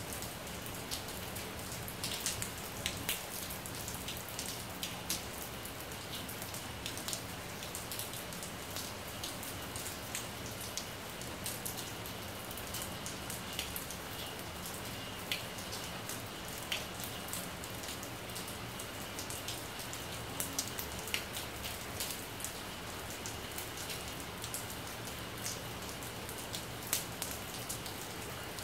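Rain falling steadily on a tiled rooftop terrace: an even hiss, with sharp ticks of nearby drops scattered through it.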